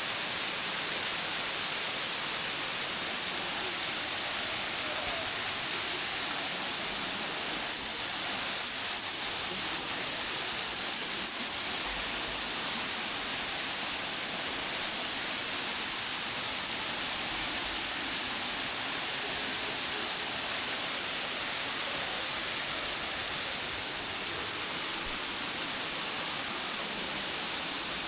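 Stepped waterfall with water cascading down tiers of black rock into a shallow pool, giving a steady, even rushing hiss.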